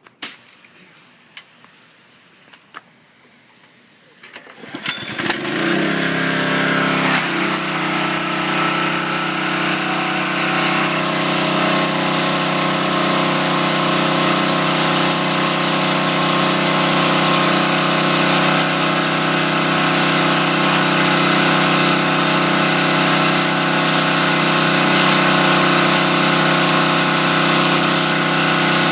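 A pressure washer starts up about five seconds in, its motor climbing in pitch and settling into a loud steady run, with the hiss of the high-pressure water jet blasting the scales off a redfish.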